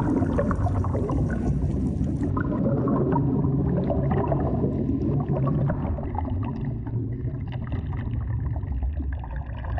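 Underwater ambience on a coral reef: a steady low rumble of moving water with dense, fine crackling throughout.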